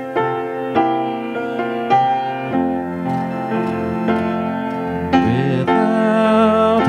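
Piano and acoustic guitar playing the introduction to a hymn, in struck chords that ring and fade. A singing voice comes in about five seconds in.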